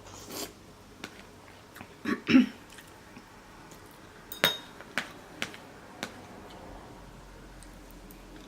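An eating utensil clinking against a dish: a handful of short, sharp clinks spread over the first six seconds, one of them a longer scrape.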